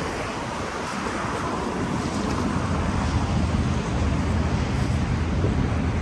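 Wind buffeting the microphone: a steady low rumble with a rushing hiss.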